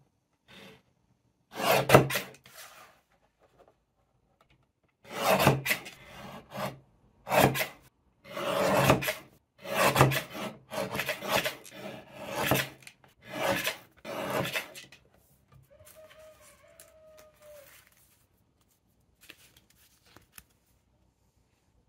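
Fiskars paper trimmer's blade cutting through sheets of card, a series of about eight separate rasping cuts that stop after about fifteen seconds.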